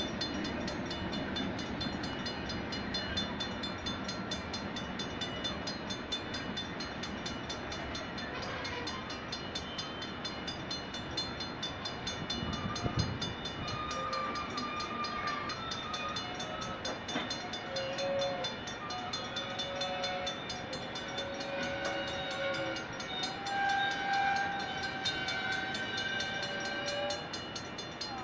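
Freight train cars rolling steadily past a grade crossing. From about a third of the way in, short squealing tones come and go at shifting pitches, typical of wheel flanges squealing on the rail.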